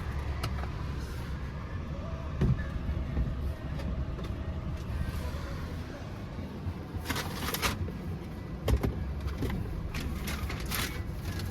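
Car engine idling, heard from inside the cabin as a steady low rumble. A few sharp clicks and short rustles come about two and a half seconds in and again in the second half.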